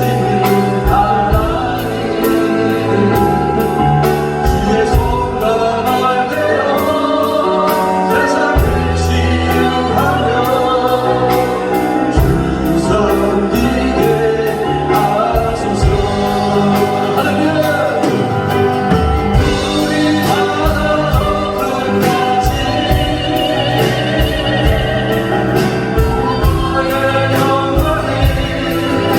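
Choir singing a gospel worship song with instrumental accompaniment and a steady beat.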